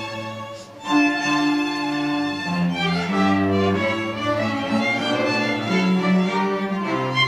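A string orchestra of violins and cellos playing long bowed notes over a low cello line. The sound dips for a moment just before a second in, then a new phrase comes in strongly.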